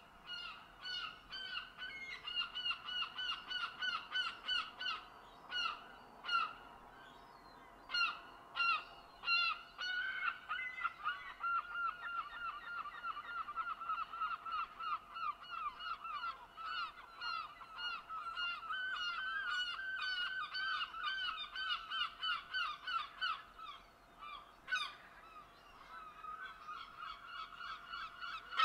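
A flock of geese honking, many short calls overlapping in a rapid, continuous run, with a brief lull and a single sharp click near the end.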